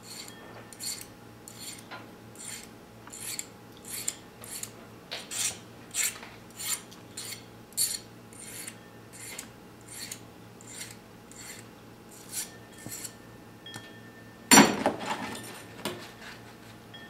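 A flat hand file rasping back and forth on a piece of silver wire, in short even strokes about one and a half a second. About fourteen seconds in there is a loud knock with a brief clatter.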